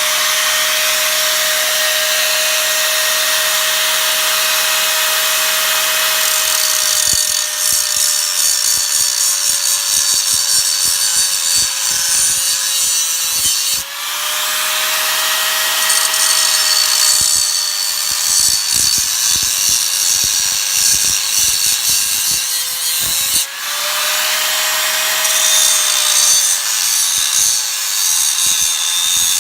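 Handheld angle grinder with an abrasive cut-off disc running at full speed with a steady high whine, then cutting into a square steel box tube from about a quarter of the way in with a harsh grinding rasp. Twice, near the middle and about three-quarters in, the load eases for a moment and the whine rises before the cut goes on, as the tube is cut one side at a time.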